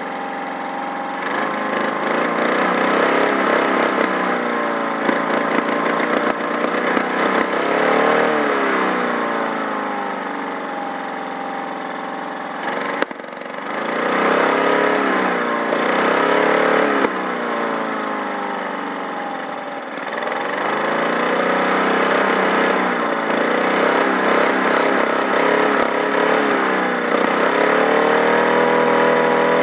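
Lawn mower engine running and being revved up and down several times, with a few sharp pops from the exhaust: it is backfiring, popping without throwing flame.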